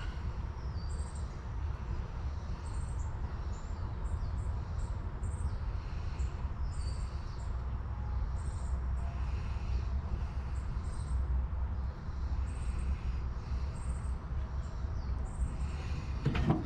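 Birds chirping high and short, again and again about once a second, over a steady low rumble.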